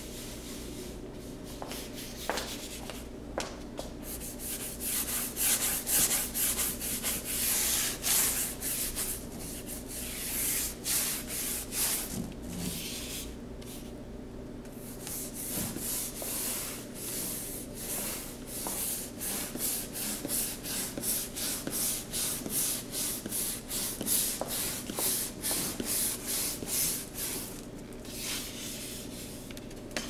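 A flat paintbrush stroking wet paint onto a cardboard sheet: a scratchy, hissing brushing in quick back-and-forth strokes, about two a second, with a few short pauses.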